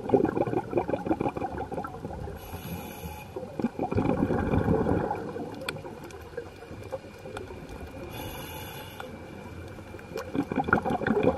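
Scuba diver breathing through a regulator, heard underwater. Exhaled bubbles rush out at the start, around four seconds in and again near the end. A short hissing inhale comes in each gap, about two and a half and eight seconds in.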